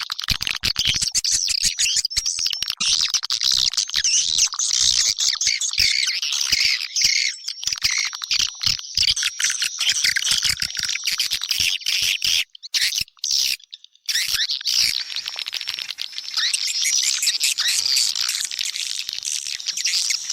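Swiftlet lure call ('China Kalbar' style): a dense, continuous chatter of edible-nest swiftlet chirps, trills and clicks, the sound played to draw swiftlets into a nest house. It drops out briefly a couple of times about two-thirds of the way in.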